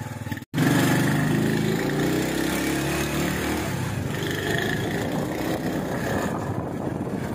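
Small motorcycle engine running as it is ridden along at low speed, with gentle rises and falls in pitch. The sound comes in after a brief dropout about half a second in.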